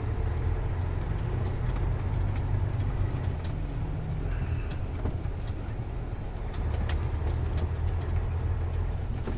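Truck's diesel engine running with steady road noise inside the cab, a low drone, while it crosses a broken, potholed bridge surface, with scattered small knocks and rattles.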